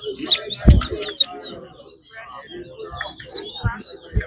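Caged 'red bird' songbirds singing in a song race: quick chirps and short whistled notes, some sliding up or down in pitch. A few dull thumps sound through the song.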